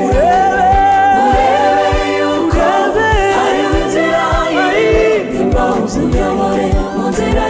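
Live gospel song: a lead singer and a choir of backing singers singing over a band, with a steady beat about twice a second.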